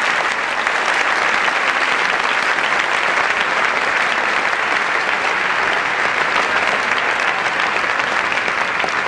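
Audience applauding steadily, a dense, even clapping that holds throughout.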